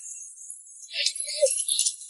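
Short high jingling of bells, like an edited-in sound effect, starting about a second in.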